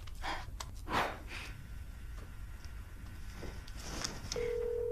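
A few soft breaths and rustles. Near the end a phone's ringback tone starts: one steady low tone heard through the handset, signalling that an outgoing call is ringing.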